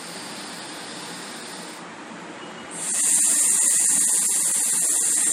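A man's breath: a softer breathy sound, then about three seconds in a long, loud, steady 'sss' hiss as he lets the breath out through his teeth. This is the 'iss' exhalation of a yogic breathing exercise, the tongue held between the teeth after a full breath drawn in with the tongue on the palate.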